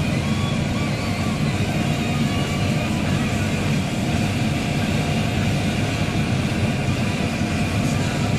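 Combine harvester running steadily under load while harvesting soybeans, a continuous engine and machinery drone.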